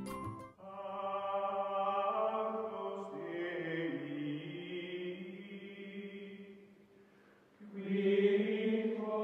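Music of sustained choral chanting: long held chords that fade out about seven seconds in and swell back in a second later.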